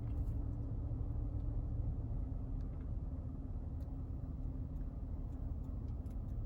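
Steady low hum of a car cabin, as from the engine idling, with a few faint clicks of a small plastic item being handled.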